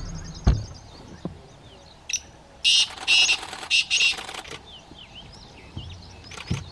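Male black francolin giving its territorial call: a loud, harsh series of about five grating notes lasting a couple of seconds, starting in the middle. A sharp knock sounds about half a second in.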